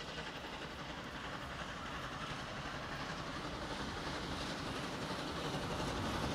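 Victorian Railways K-class steam train approaching on the tracks, a steady rumble that grows steadily louder as it nears.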